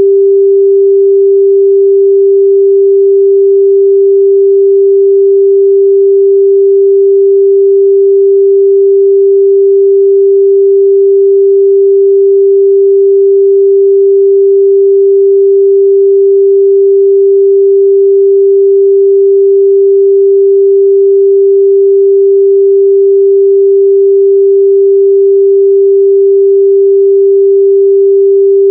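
A steady, pure 394 Hz sine-wave test tone, held at a constant pitch and level.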